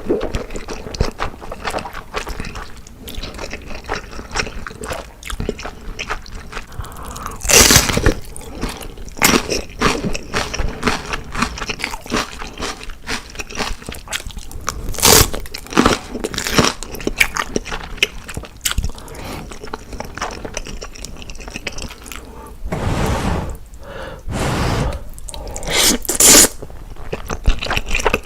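Close-miked eating: chewing with crisp, crunchy bites and wet mouth sounds over a meal of black bean noodles. A few louder bursts stand out about 8 and 15 seconds in, and again near the end.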